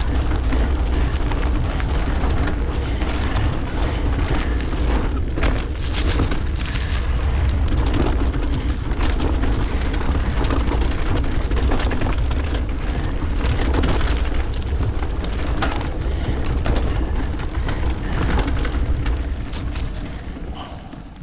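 Mountain bike ridden fast on a dirt forest trail: heavy wind noise buffeting the camera microphone, with tyres on dirt and frequent sharp clicks and rattles from the bike over rough ground. The noise dies down near the end.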